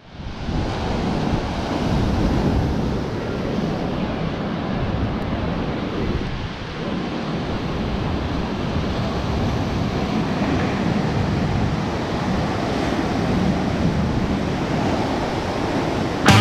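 Ocean surf breaking and washing white over granite rocks along the shore in a steady, continuous rush. It fades in at the start.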